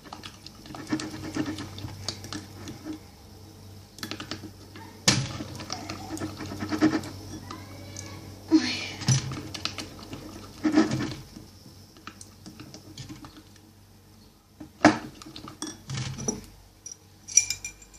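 Plastic spoon stirring slime in a bowl, scraping and knocking against the sides, with a few sharper taps spread through.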